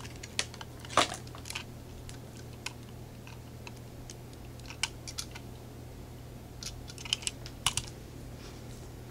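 Scattered light clicks and taps, about a dozen, of a small diecast model truck and its packaging being handled and set down on a table, over a steady low hum.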